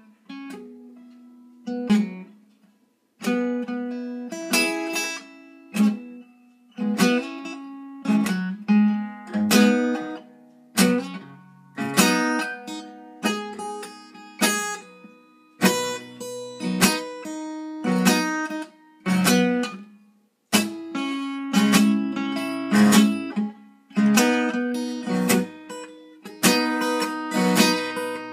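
Acoustic guitar strummed in chords, each strum ringing out and fading, about one or two a second, with brief pauses between phrases.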